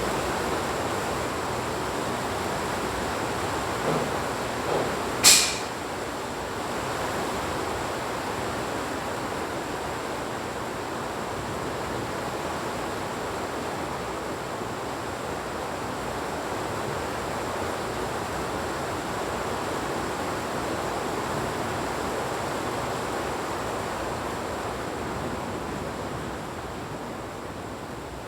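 Heavy rain falling in a steady hiss. Around four to five seconds in there are two small knocks, then a short sharp crack.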